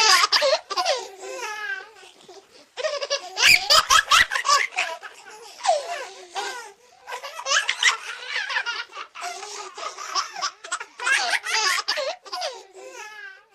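A baby laughing and giggling in a string of short, high-pitched peals with brief pauses between them.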